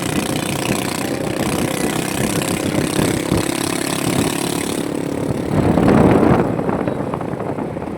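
Motorcycle engine running steadily on the move, with a louder surge of noise about six seconds in.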